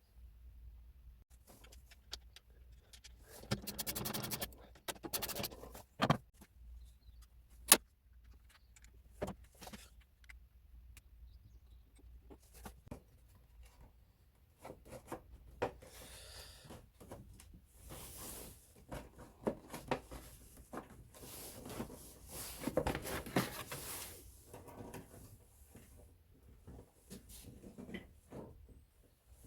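Scattered metallic clicks, clinks and rustling of tools and parts being handled, with a few sharper single clanks.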